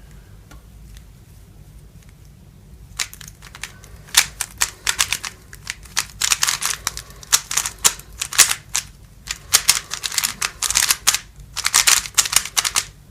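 MoFang Jiaoshi MF3RS3M magnetic 3x3 speedcube being solved: fast runs of plastic layer turns clacking, starting about three seconds in after a quiet moment.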